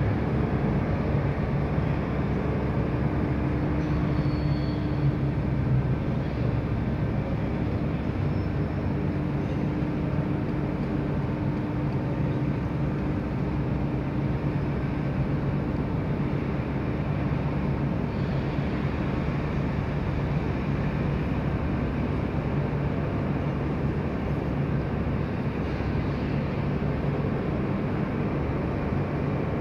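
Steady railway station ambience under the train shed: a continuous low hum from the trains standing at the platforms, with a higher steady tone that fades out about halfway through.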